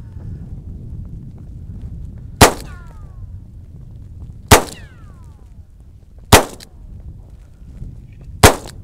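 Four pistol shots, about two seconds apart. A falling whine trails off after the second and third shots.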